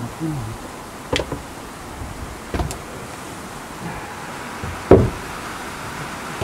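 Wooden knocks as a long wooden plank is handled and set against the timber wall of a shed: three sharp knocks, the loudest about five seconds in.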